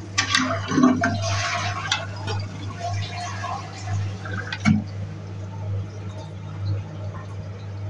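Toilet cistern being flushed: sharp plastic clicks of the push button, water rushing out of the open tank, and the fill valve (ball cock) running water back in. The fill valve, cleared of the debris that had blocked it, refills at full pressure.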